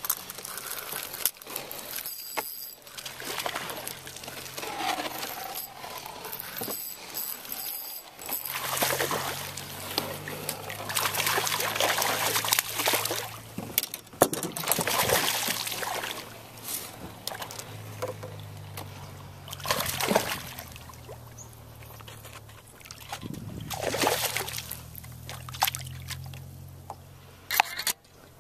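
Water splashing and sloshing in uneven surges, with camera handling noise, while a hooked bass is fought on a rod and brought to the boat.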